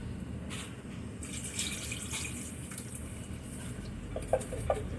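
Water running or splashing for about a second and a half, then two light clinks of kitchenware near the end.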